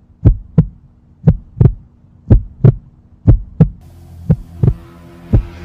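Heartbeat sound effect: pairs of deep lub-dub thumps repeating about once a second. A low steady drone comes in under it after about four seconds.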